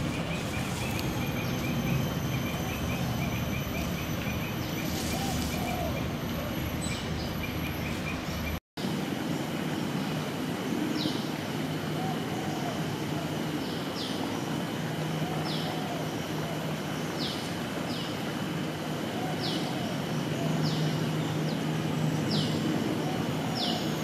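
Steady outdoor background noise with short high chirps repeating about once a second; the sound drops out for an instant about a third of the way in.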